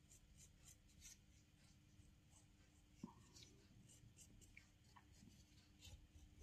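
Faint, light scratching of a wooden knife, used as a modelling tool, smoothing the joined edge of a clay cylinder, with one soft knock about three seconds in over a low steady hum.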